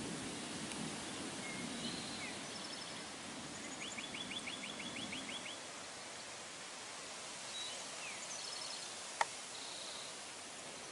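Outdoor ambience with a steady background hiss and birds calling: scattered chirps and a quick run of about nine rapid notes about four seconds in. A single sharp click sounds near the end.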